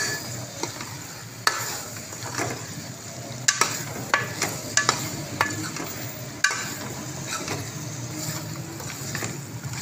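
A metal ladle stirring and scraping a thick, sizzling tomato-and-chicken masala in a steel pot, with sharp clinks of the ladle against the pot at irregular moments, most of them in the first seven seconds. The masala is being fried until the ghee separates.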